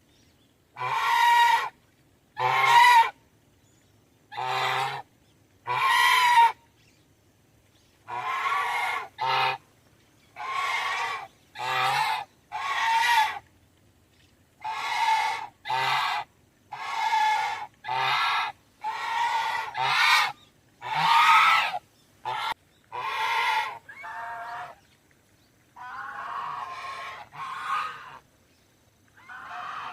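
Domestic goose honking: about twenty separate loud, harsh honks, each under a second long, with short silent gaps between them.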